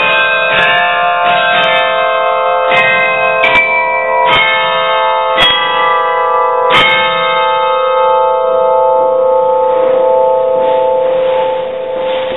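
Carillon bells struck from the baton clavier, playing the closing notes of a tune. The last chord is struck about seven seconds in and left to ring out, fading slowly until the sound cuts off suddenly at the end.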